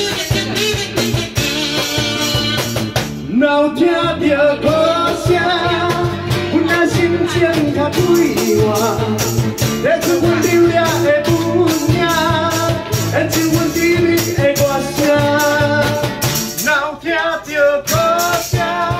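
Live band music: a man singing into a microphone over a strummed acoustic guitar and an electric bass, with a steady beat.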